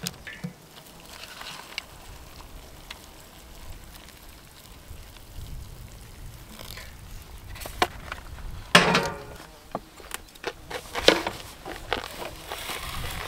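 A foil lid peeled back from a paper instant-meal cup, then hot water poured from a stainless steel kettle into the cup, with a few sharp knocks and clinks of kettle and dishes on a camp table.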